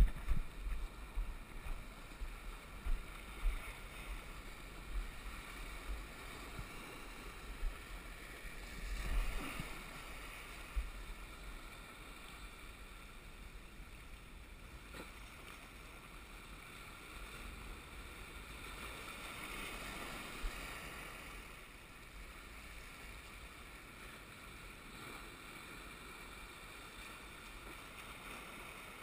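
Small waves washing and breaking over shoreline rocks, surging louder about nine seconds in and again around twenty seconds, with wind buffeting the microphone and a few short knocks.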